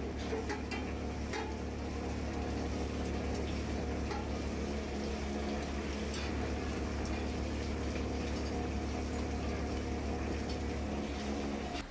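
Steady low workshop hum with an even hiss, and a few light metallic clinks as metal pressure-cooker pots are handled and stacked.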